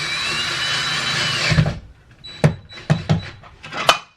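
Power drill running with a wavering pitch, stopping about one and a half seconds in, followed by a handful of sharp knocks and clicks.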